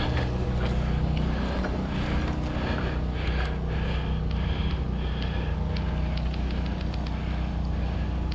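Airsoft guns firing: quick sharp clicks, several a second, thickening toward the end, over a steady low hum.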